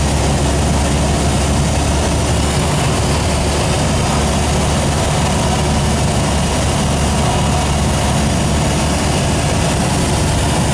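Small aircraft's engine running steadily, a constant low hum with rushing noise, heard from inside the cabin.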